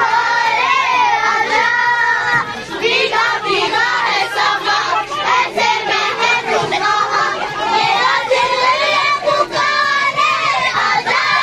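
A group of young girls singing together loudly, several voices in unison.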